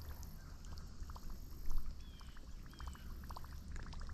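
Faint trickling and dripping water with scattered light ticks over a low steady rumble, and two short high chirps about two and three seconds in.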